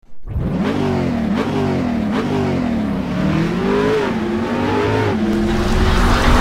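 Car engine revving in a few quick blips, each jump in pitch easing back down, then a longer climb about three to four seconds in before it settles to a steadier note.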